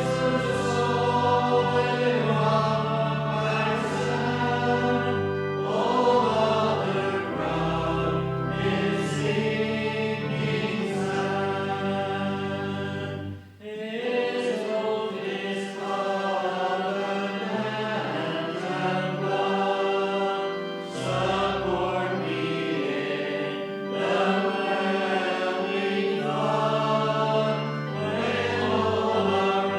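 A church congregation singing a hymn together over held instrumental chords. The singing breaks briefly about halfway through, between lines.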